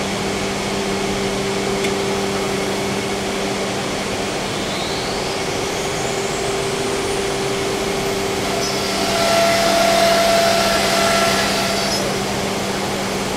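Freedom Machine Tool Patriot CNC router running with its spindle and dust collection: a steady machine hum with a rising whine about five seconds in. About nine seconds in it gets louder with a whining tone for a couple of seconds as the bit works the panel.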